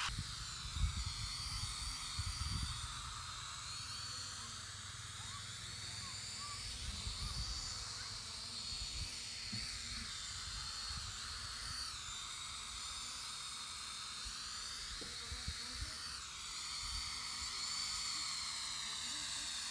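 Small foldable quadcopter drone's motors and propellers whining in flight, the pitch dipping and rising again several times as the throttle changes. Low rumbling of wind on the microphone underneath.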